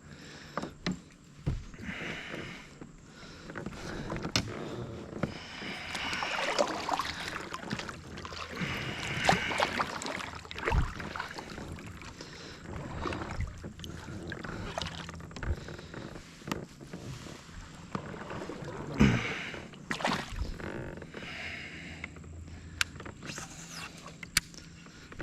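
Kayak paddling: paddle strokes swishing through the water in swells every few seconds, with a few sharp knocks in between.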